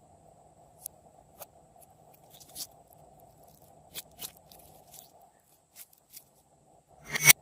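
Glossy slime being worked by hand with candy mixed in: scattered sticky clicks and pops, with one louder pop about seven seconds in.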